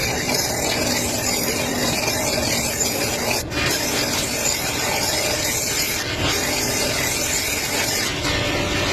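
Wood being worked with an abrasive tool, a continuous rubbing, scraping noise with a momentary break about three and a half seconds in.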